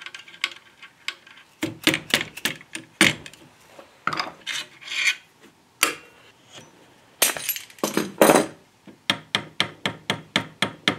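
Hand tools working on a wooden flintlock rifle stock: irregular rubbing and scraping strokes with scattered clicks, then a quick, even run of short strokes, about three a second, near the end.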